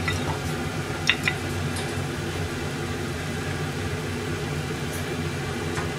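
Steady low mechanical hum of a kitchen appliance or fan. About a second in, and again near the end, come a few light clicks of wooden chopsticks against a plate.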